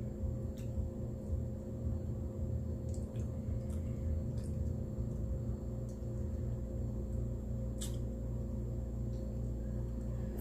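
Eating sounds: wet chewing with a few short, sharp mouth or utensil clicks scattered through, the clearest near the end, over a steady low hum.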